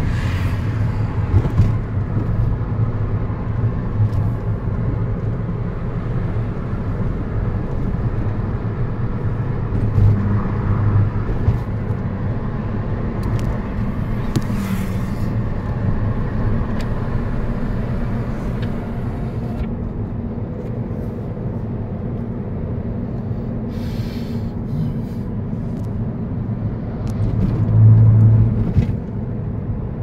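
Steady low rumble of a car driving, heard from inside the cabin: engine and road noise, with a few short clicks and rattles. The rumble swells briefly louder near the end.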